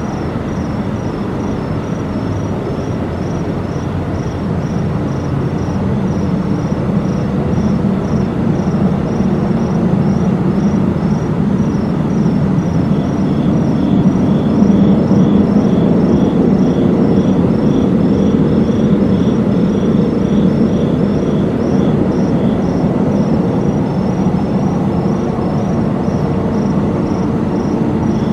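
A loud, unexplained low rumbling drone, steady with no pauses, building in level over the first fifteen seconds or so. Insects, crickets or katydids, chirp in a steady pulsing rhythm high above it.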